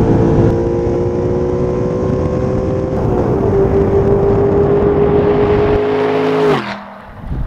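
2009 Audi R8's V8 engine accelerating hard at full throttle, its steady note climbing slowly in pitch, with a brief change in the note about three seconds in. The engine sound cuts off suddenly near the end.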